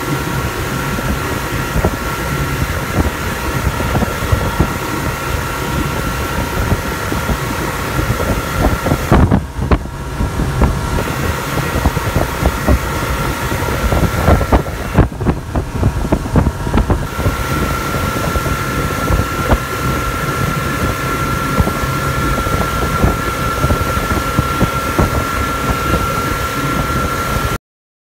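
Outboard-powered boat running at speed, with wind buffeting the microphone and a steady high whine through it; the sound cuts off suddenly near the end.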